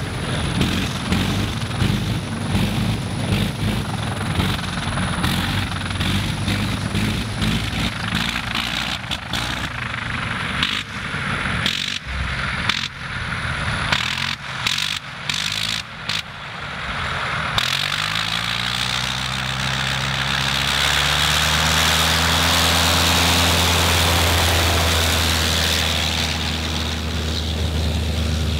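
Sopwith Snipe biplane's engine running roughly and cutting in and out while it taxis, then about eighteen seconds in opening up to full power, its pitch rising and then holding steady for the takeoff run.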